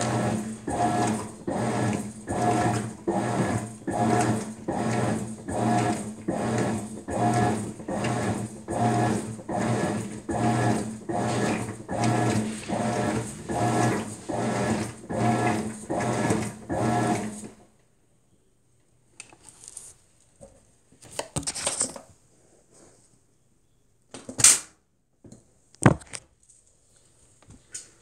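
Maytag MVWX655DW1 top-load washer agitating a load in deep sudsy water: its motor and wash action pulse back and forth with a hum, a little more than one stroke a second, then stop abruptly about two-thirds of the way through. After that only a few faint clicks and two sharp knocks.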